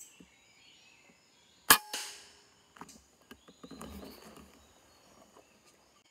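A PCP air rifle fires a single shot about two seconds in: a sharp crack with a short ring after it. A few light clicks and a brief rustle follow.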